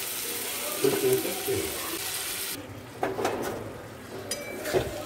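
Soaked Gobindobhog rice going into hot oil and fried onions in a metal wok. A steady sizzling hiss cuts off suddenly about halfway through, followed by scattered clicks and scrapes as more rice is tipped in against the pan.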